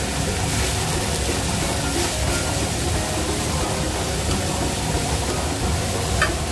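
Shredded cabbage sizzling steadily in a hot metal kadai as it is stirred with a spatula. Near the end a short clink as a steel plate is set on as a lid.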